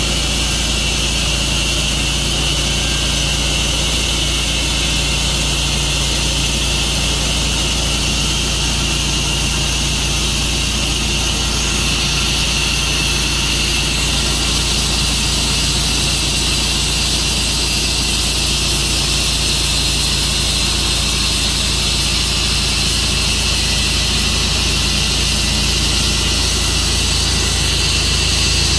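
Tru-Cut sawmill running steadily: a loud, continuous engine hum under a strong high hiss, with no pauses or changes in pitch.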